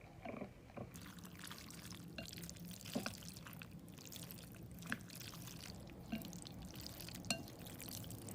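Faint, scattered light clinks and taps, some with a brief ring like glass or ceramic, over a low steady hum.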